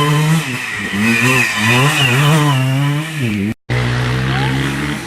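Vintage motocross motorcycle engines revving, the pitch rising and falling repeatedly with the throttle. The sound cuts out for a moment about three and a half seconds in, then the engine note resumes.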